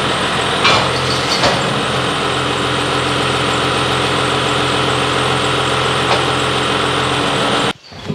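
Case IH Maxxum tractor's diesel engine idling steadily, with two short knocks about a second in. The sound cuts off abruptly near the end.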